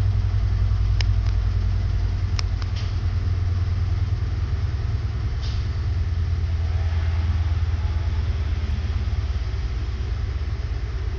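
Steady low mechanical hum, like a small motor running, with a few faint clicks in the first few seconds.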